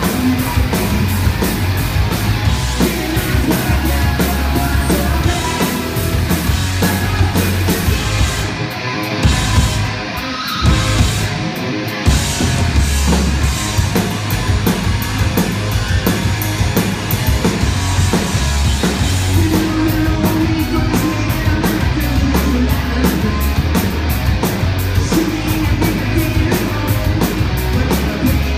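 Rock band playing live: distorted electric guitars, bass and drum kit. Between about 8 and 12 seconds in, the band breaks off a few times with short stabbed hits, then comes back in at full volume.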